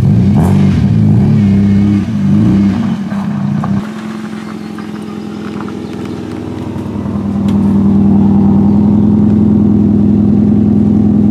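Car engine revving up and down for about four seconds, then held at a steady high pitch that grows louder about seven seconds in.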